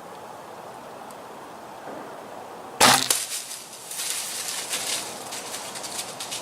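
A single sharp crack about three seconds in as a Bowtech compound bow is shot at a buck and the arrow strikes. It is followed by an irregular run of crackling and rustling as the hit deer crashes away through the brush.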